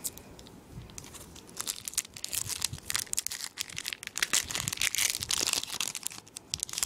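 Foil wrapper of a Pokémon trading card booster pack being torn open and crinkled by hand, quiet at first and then a dense run of crackling from about a second and a half in.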